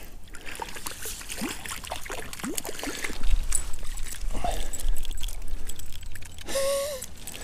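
Brown trout splashing at the water's surface as it is reeled in and scooped into a landing net, with scattered clicks and knocks from handling the rod and net. A short hummed voice sound comes near the end.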